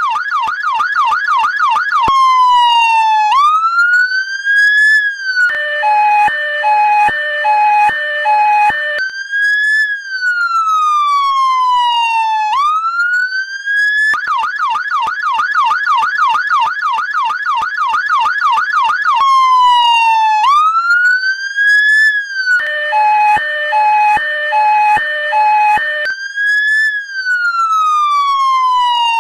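Fire engine siren cycling through its modes. It starts with a fast warbling yelp, moves to slow wails that fall and rise, then gives a chopped two-note beeping, and goes back to the wail. The whole sequence repeats about halfway through.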